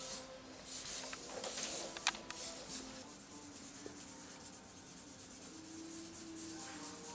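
Faint scratching and rubbing of marker pens drawing on paper, with a few light ticks in the first three seconds, over soft background music of long held notes.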